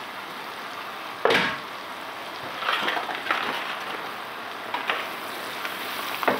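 Chopped onions sizzling in butter in a non-stick pan, with a sharp knock about a second in, then a spatula scraping and stirring through them several times.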